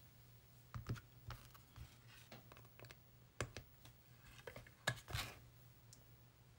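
Scattered light clicks and taps of a plastic pen tray and a clear plastic fountain pen being handled on a marble countertop as the pen is lifted out of its cradle, the loudest cluster about five seconds in. A faint steady low hum lies underneath.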